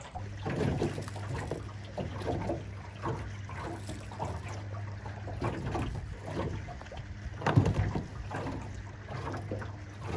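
Water lapping and slapping against a small boat's hull, over a steady low hum. Irregular knocks come through, the loudest about seven and a half seconds in.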